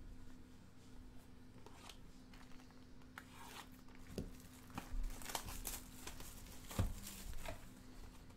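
Cellophane shrink-wrap crinkling and tearing as a sealed cardboard trading card box is handled and unwrapped, with a few light knocks of the box on the table.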